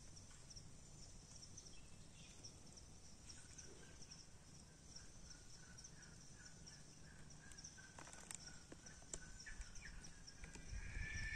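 Very faint forest ambience: a steady high chirring of insects with small repeated chirps in it, and a faint run of short, evenly repeated calls from about three seconds in.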